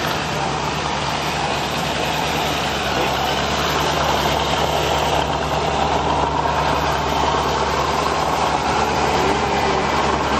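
Engine running steadily: a constant low drone with a loud rushing noise over it.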